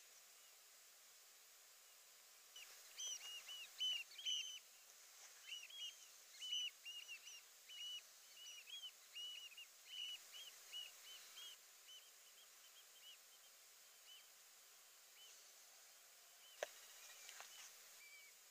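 A small bird chirping, a quick run of short, clipped notes for several seconds, then a few spaced chirps, over a faint steady hiss. One sharp click near the end.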